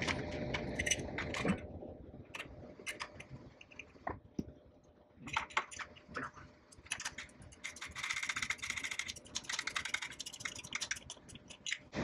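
Hand ratchet clicking while a 10 mm bolt is tightened, with scattered clicks and clinks of metal tool handling, then a fast run of even ratchet clicks from about seven to eleven seconds in.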